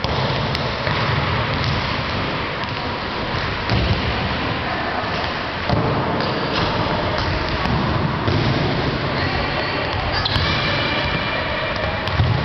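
Footballs being dribbled and kicked on a hard sports-hall floor: scattered dull thuds over a steady, echoing din in the large hall.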